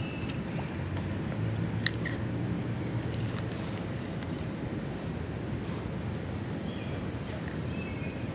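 Outdoor ambience: a steady low rumble of distant city traffic under a high, even insect drone, with one sharp click about two seconds in and a few faint bird chirps near the end.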